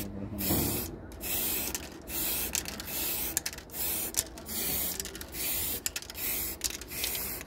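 Aerosol spray-paint can hissing in short repeated bursts, a little more than one a second, as the nozzle is pressed and released.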